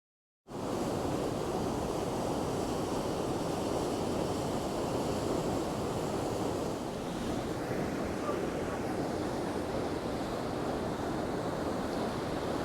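Waterfall in full spate: a steady rush of heavily falling water, starting abruptly about half a second in.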